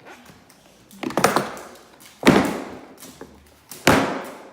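Three loud, hard thuds, a second or so apart, each ringing out briefly after the hit.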